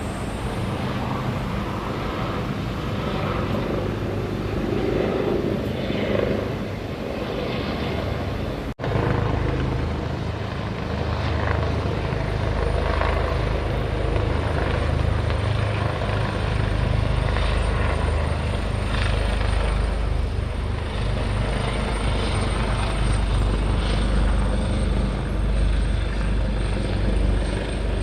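Helicopter in flight: steady rotor and turbine engine noise, with a brief break about nine seconds in, after which the low rumble is stronger.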